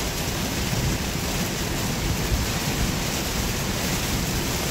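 Heavy rain on a Tesla Model 3 and its tyres on the flooded road, heard inside the cabin as a steady hiss.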